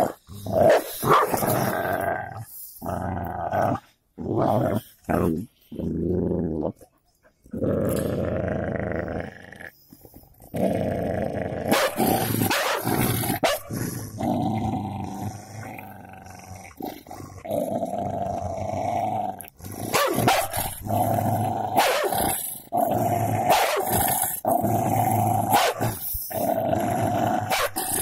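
Golden Labrador and black cocker spaniel growling at each other as they fight, in long continuous growls broken by short sharp sounds and brief pauses.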